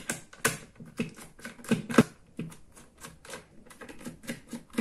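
Irregular plastic clicks and knocks from the Opus BT-C3100 charger's housing being handled and worked open after its four screws, the loudest knock about two seconds in.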